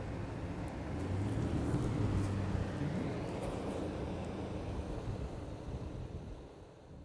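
Road traffic passing: cars and a pickup truck driving by with engine hum and tyre noise, fading out near the end.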